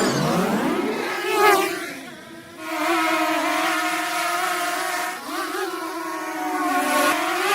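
Intro sound design: a loud, buzzy, engine-like drone that swoops down and up in pitch, dips briefly about two seconds in, then holds and rises again.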